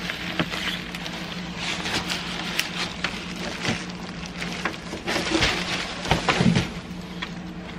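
Polystyrene packing peanuts rustling and crunching as a computer is lifted out of a cardboard box full of them, with the cardboard scraping and loose peanuts pattering onto the floor. The rustling grows louder about five seconds in.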